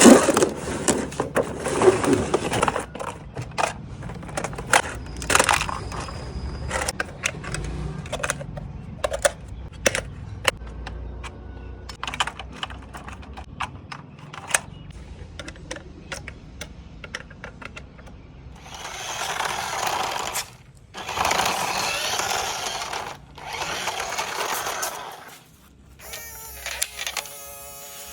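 Packaging and plastic parts of a toy truck being handled: rustling at first, then scattered clicks and taps. Later come three loud crinkling or tearing rushes of about two seconds each, and near the end a short pitched buzz.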